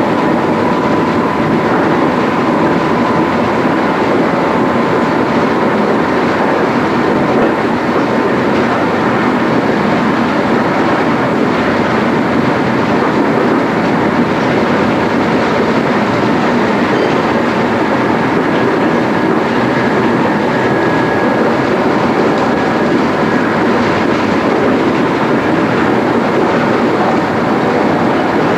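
MI79 electric multiple unit running at speed on RER line B, heard from inside the driver's cab: steady wheel-and-rail running noise with no break, and a faint high whine near the start and again in the second half.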